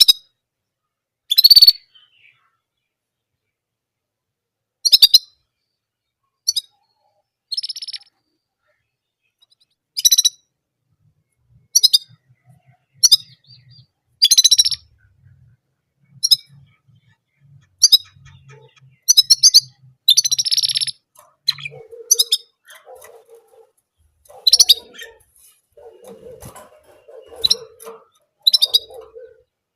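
German canary singing in short, separate bursts of song every second or two, several of them rapid trills.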